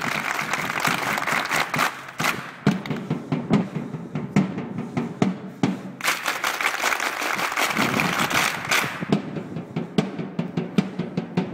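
A crowd of fans clapping together over their heads in rhythm, with voices chanting and shouting underneath. The sharp claps come in uneven groups, and the voices swell into a loud shout about eight seconds in.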